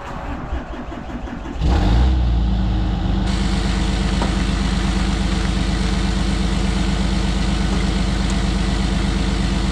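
Cummins diesel engine cold-started at about 8 degrees: the starter cranks for under two seconds, the engine catches with a brief flare, then settles into a steady, loud idle.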